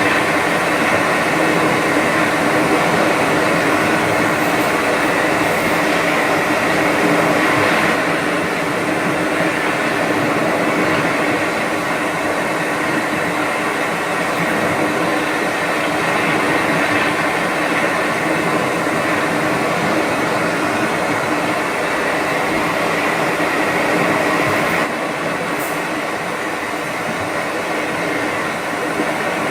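Steady mechanical hum: a continuous rushing drone with several steady tones in it, stepping down slightly in level about 8 seconds in and again near the end.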